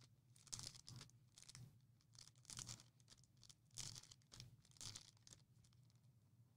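Trading-card pack wrappers being slit open with a knife: faint, scratchy tearing and crinkling strokes, roughly one a second.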